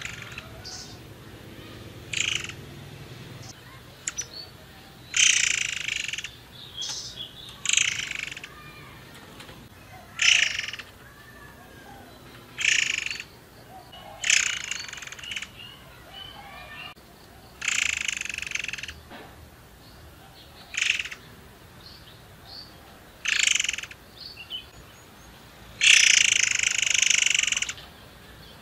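Caged murai air singing in short, loud phrases, one every two to three seconds, the longest near the end.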